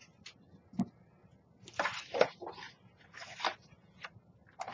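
Paper rustling and sliding as a sheet is repositioned in a We R Memory Keepers Lucky 8 paper punch, with a few short clicks from the punch.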